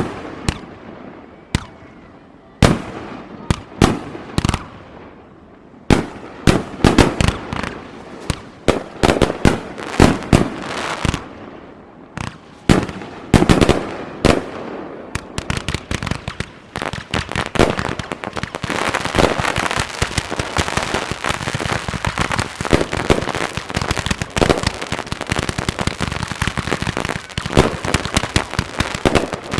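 Aerial fireworks display: loud shell bursts about every second with crackling tails, giving way about halfway through to a dense, continuous crackle of many small pops.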